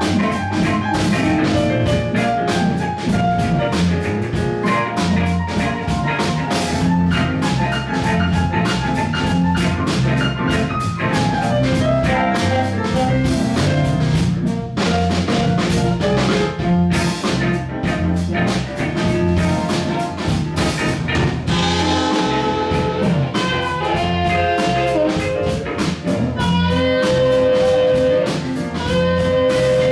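Live blues band playing: drum kit and bass keeping a steady groove under electric guitar and amplified harmonica, with held harmonica notes late in the passage.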